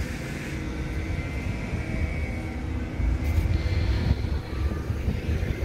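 Low, gusty rumble of wind buffeting the camera's microphone.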